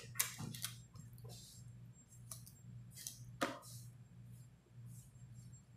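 Cardboard product box being handled and its packaging slid open: faint scrapes and rustles with a few light taps, the sharpest about three and a half seconds in, over a low steady hum.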